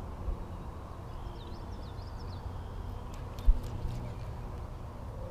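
Low rumble of wind on the microphone with a few short bird chirps, and a single sharp thump about three and a half seconds in.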